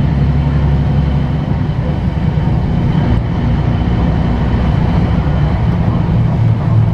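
Articulated city bus's diesel engine droning steadily under way, heard inside the passenger cabin.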